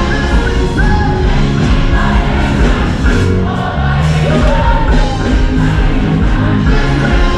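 Children's choir singing a gospel song with a live band.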